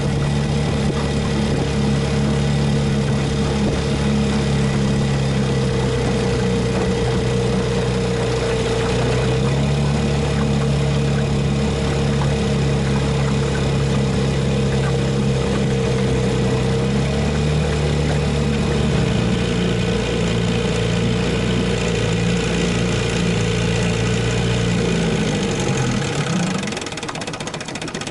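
Vintage 1961 Johnson Seahorse two-stroke outboard motor running steadily, pushing the jon boat along. Its note steps down in pitch about two-thirds of the way through. Near the end it is throttled back and drops lower and quieter.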